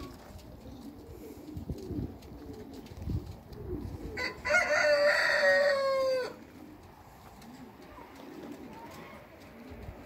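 A rooster crowing once, a single long call of about two seconds near the middle, held on one pitch and dropping slightly at the end, over faint low rustling.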